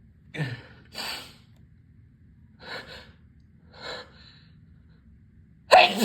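A person gasping in sharp, breathy breaths several times as a sneeze builds up, then a loud sneeze near the end.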